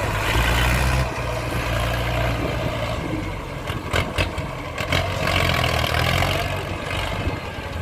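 Ford 6610 tractor's four-cylinder diesel engine running steadily while working the field, swelling louder twice as it takes on load, with a few sharp knocks about four seconds in.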